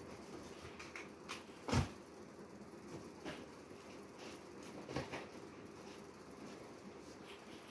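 A few short, scattered knocks and thumps over a low steady background, the loudest about two seconds in.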